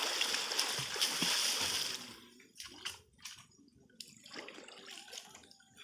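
River water splashed hard by people swimming and wading around a fishing net, loud for about two seconds, then dying down to small scattered splashes and sloshing.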